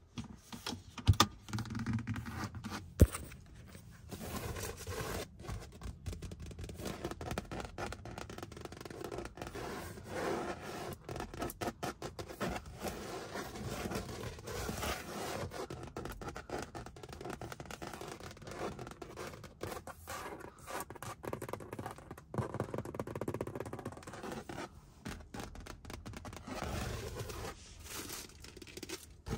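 Fingernails scratching and rubbing on a car's stitched, perforated leather seat, with a few sharp taps in the first three seconds.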